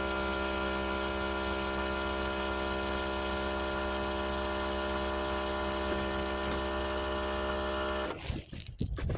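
Steady droning hum made of many even overtones, unchanging in pitch. About eight seconds in it breaks off suddenly, giving way to irregular knocks and rustling.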